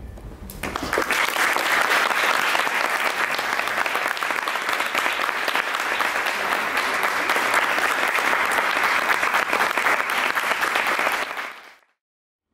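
Audience applauding, a dense steady clapping that starts about half a second in and fades out near the end.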